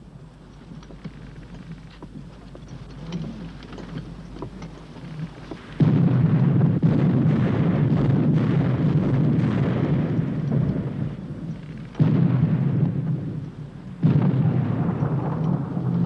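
Deep rumbling of naval cannon fire, faint at first, then loud from about six seconds in. It breaks off abruptly twice and starts again each time.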